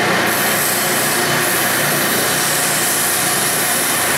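Ridgid oscillating spindle sander running, with the hiss of a wooden piece being sanded against the spinning drum starting about a third of a second in.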